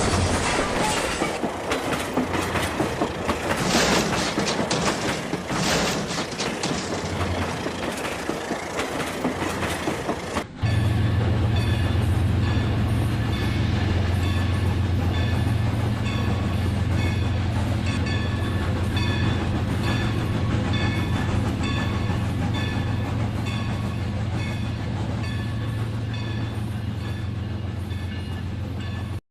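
Rail King toy train running on its plastic track, with a mechanical whirr and clattering clicks. About ten seconds in the sound changes abruptly to a steady low hum with an even, repeating ticking.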